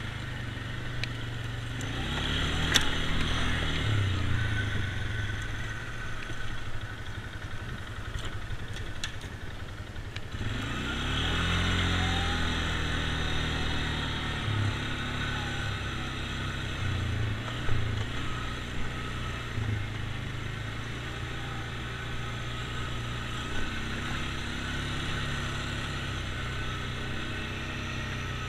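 ATV engine running at low speed over a rough trail, its pitch rising as it picks up revs about ten seconds in. A couple of sharp knocks and some clatter from the machine jolting over the ground.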